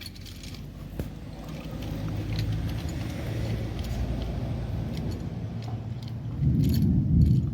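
A motor vehicle engine running steadily, growing louder near the end, with a few light metallic clinks of tools.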